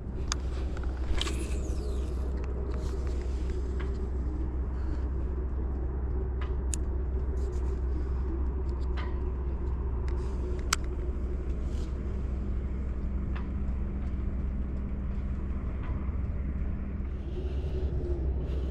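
Steady low rumble with scattered light clicks and ticks as a baitcasting reel is cranked by hand.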